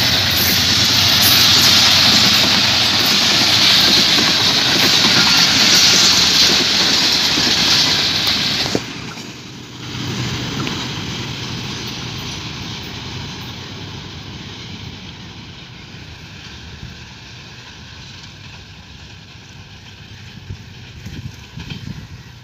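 Passenger train hauled by a GEU-20 diesel-electric locomotive running past: a loud, steady rush of wheels on rail and coaches going by. The sound drops off abruptly about nine seconds in, and the receding train's rumble then fades slowly.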